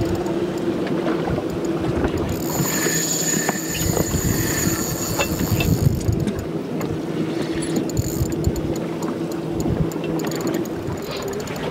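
Boat motor running steadily with wind on the microphone as a false albacore is fought on a spinning rod. From about two to six seconds in, a high-pitched buzz rises over it: the reel's drag giving line to the running fish.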